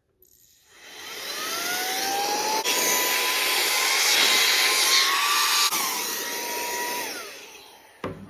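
Saker 3-in-1 handheld vacuum's motor run in air extractor mode, drawing the air out of a plastic bag: it spins up with a rising whine, runs steadily, then winds down and stops near the end, followed by a short click.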